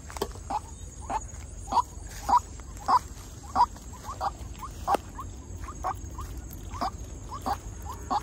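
White-breasted waterhen calling: a steady, repeated series of short, sharp notes, a little under two a second.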